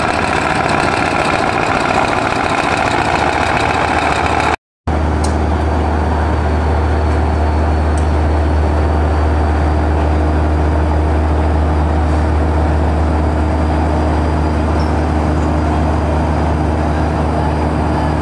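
Weichai marine diesel engine of a large passenger river launch running with a steady deep drone. For the first four and a half seconds a louder rushing noise covers it, ending abruptly at a cut, after which the low engine drone is clear.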